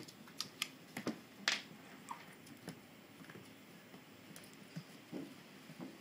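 Paws and claws clicking and scuffling on a hardwood floor as a Cavachon puppy and a cat tussle. There is a quick run of sharp clicks in the first second and a half, then a few softer taps and scuffs.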